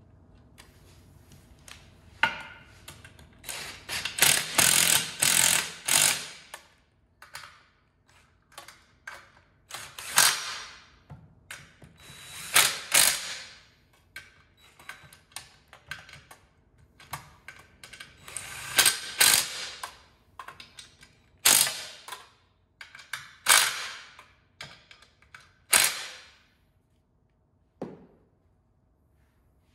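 Cordless power driver run in a series of short bursts, half a second to two seconds each and several seconds apart, working fasteners on an aluminium Holley oil pan.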